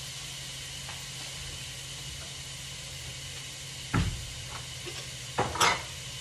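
Ground beef sizzling steadily in a frying pan with oil. A heavy thump comes about four seconds in, and a short clatter of hard kitchen items near the end.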